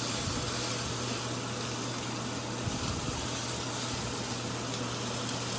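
Bone-in pork chops sizzling on a hot stovetop grill pan, a steady hiss, with a low steady hum underneath.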